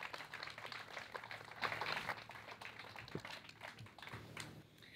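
Faint, scattered applause from an audience, rising a little about two seconds in.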